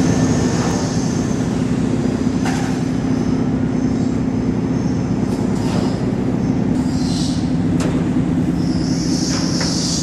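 Heavy machinery running steadily with a low engine drone, overlaid by a few short metallic knocks and high-pitched squeals of metal on metal near the start, about seven seconds in and near the end.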